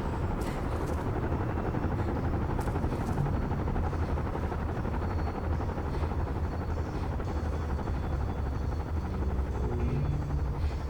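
A steady, low rumbling drone with a fluttering texture and a strong deep hum underneath, unbroken throughout.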